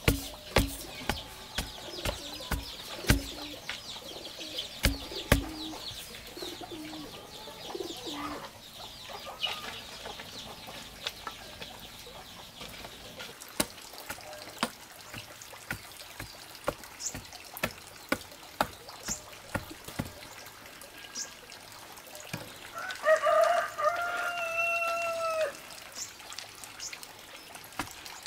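A bamboo pole jabbed repeatedly into the soil to dig a planting hole: a dull thud about twice a second for the first several seconds, then scattered lighter knocks. Short bird calls in the first part, and a rooster crows once near the end, for about two and a half seconds.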